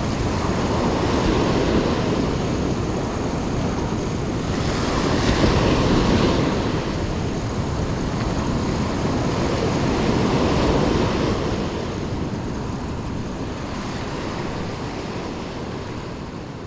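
Surf breaking and washing up the beach, with wind buffeting the microphone. The wash swells about five seconds in and again around ten seconds, then fades away near the end.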